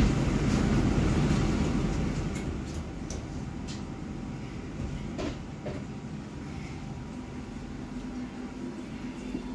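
Cabin noise inside a moving Bustech ZDI bus: a low rumble of engine and road, becoming quieter about two seconds in, with a few light clicks and rattles.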